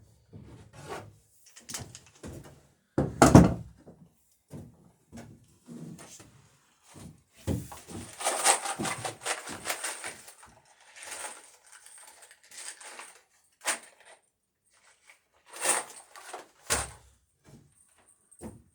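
Irregular knocks and thunks of work on a wooden boat hull, the loudest about three seconds in. A longer rough scraping noise runs from about eight to ten seconds.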